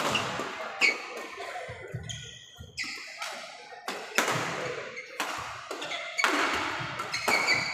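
Badminton rackets striking a shuttlecock in a doubles rally, a series of sharp hits one to two seconds apart that echo in the hall, with short shoe squeaks on the wooden court between them.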